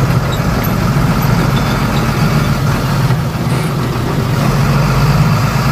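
Tata SE 1613 tipper truck's diesel engine running steadily at low revs, heard from inside the cab as the truck creeps forward on light throttle.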